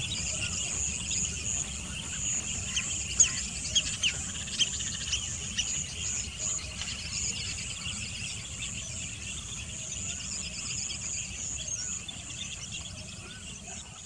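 Outdoor marsh ambience: a steady high chorus of insects trilling, with many short bird chirps over it, most frequent about three to five seconds in, and a low steady rumble underneath.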